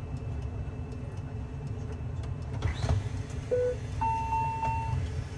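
Steady low rumble inside a business jet's cabin as the cabin door is worked, with a sharp clunk of the door mechanism about halfway through. A short low electronic beep follows, then a longer, higher beep lasting about a second.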